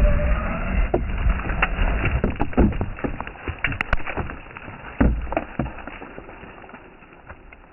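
RC truck tearing past on gravel, its tyres throwing stones and leaves: a low rumble with scattered sharp clicks and knocks of flying and landing stones, fading away over the last few seconds.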